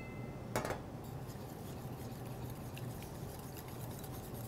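Small wire whisk stirring mayonnaise and ponzu in a stainless steel bowl: faint light ticks of the wires against the bowl, with one sharper click about half a second in, over a steady low hum.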